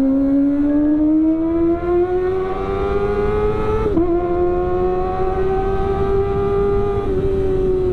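Kawasaki ZX25R's inline-four engine, breathing through an aftermarket CLD exhaust, held at high revs. Its high-pitched note climbs slowly for about four seconds, dips for a moment, then holds steady.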